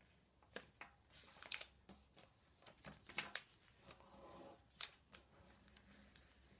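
A sheet of paper being folded and creased by hand: faint rustling and crinkling with several short, sharp clicks.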